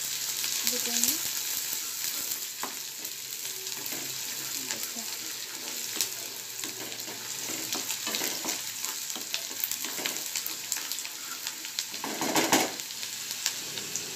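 Chopped onions sizzling in hot oil in a non-stick kadhai while a spatula stirs them, with small clicks and scrapes against the pan and louder stirring near the end. The onions are being sautéed until golden.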